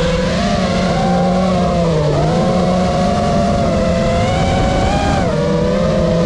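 FPV quadcopter's brushless motors and propellers whining loudly, several pitches at once that sag and climb again with the throttle, dipping about two seconds in and again near the end.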